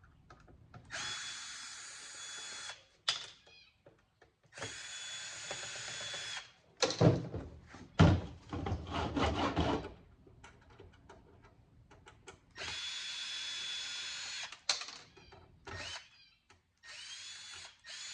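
Power drill spinning out screws from the sheet-metal case of an audio equalizer, in four short runs of a steady whine of about two seconds each. Around the middle there is a stretch of loud clattering knocks as the metal case and cover are handled.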